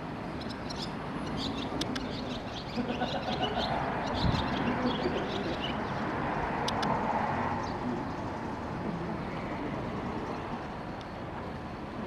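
Barn swallow of the red-bellied eastern subspecies (Hirundo rustica saturata) singing, a thin twittering of short high notes over the first few seconds, with a few more later. A broad rushing noise swells in the middle and fades again, louder than the song.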